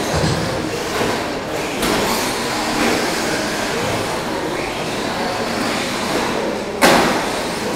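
Electric 1/10-scale short course RC trucks with 13.5-turn brushless motors racing on an indoor dirt track: a steady mix of motor whine and tyre noise, echoing in the hall. A sudden loud bang about seven seconds in.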